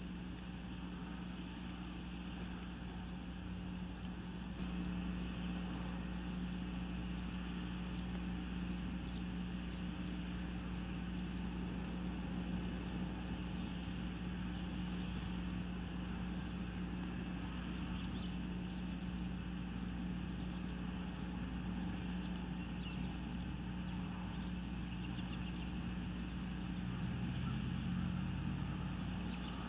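Steady low hum over an even background rush, like a distant engine running, with no clear calls or knocks standing out.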